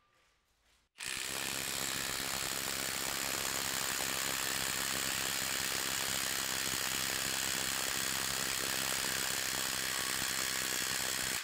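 Ridgid mid-torque cordless impact wrench hammering at full power in reverse against a loaded torque-test fixture: a rapid, steady rattle of impacts, about 3,800 a minute. It starts about a second in, runs for about ten seconds and cuts off suddenly.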